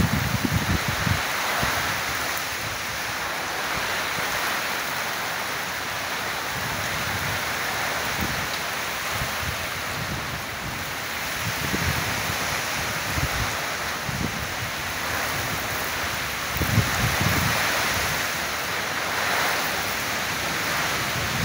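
Thunderstorm rain and wind: a steady hiss, with gusts of wind rumbling on the microphone now and then, strongest about three-quarters of the way through.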